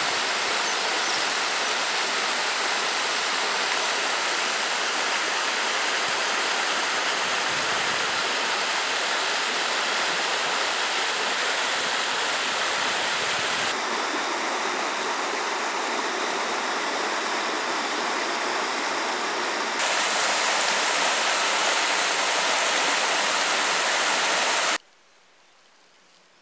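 Rocky forest stream rushing and splashing over boulders: a steady loud wash of water. Its tone shifts slightly twice, and it cuts off abruptly near the end.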